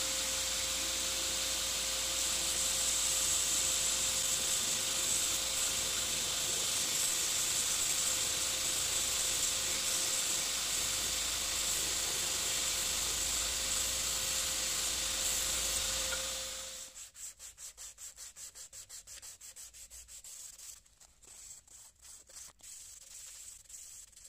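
Belt grinder running with a steel cleaver blade held against the abrasive belt: a steady grinding hiss with a constant hum. About 17 seconds in it stops and gives way to quieter, rapid back-and-forth strokes of the blade being sanded by hand.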